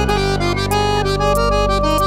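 Diatonic accordion playing a stepping melody over a steady low drone, with a regular electronic beat of crisp high ticks.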